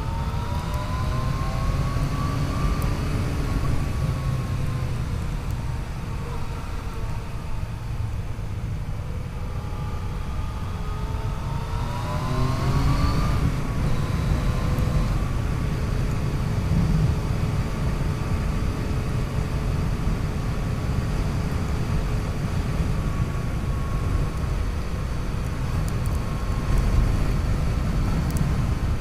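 Yamaha FJ-09's 847 cc inline-three engine pulling under acceleration. Its pitch rises twice, in the first few seconds and again around twelve seconds in, then it settles into a steady cruise. A dense low rumble of wind and road noise from riding at speed runs under it.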